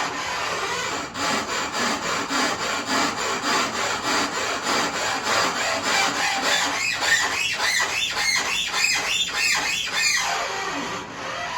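Rhythmic scraping strokes worked on a dishwasher, about three a second, turning into rising-and-falling swishes in the second half.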